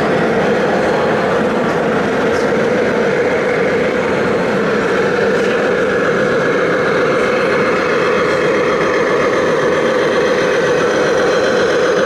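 Radio-controlled scale model trucks running: a steady mechanical drone with a constant mid-pitched hum.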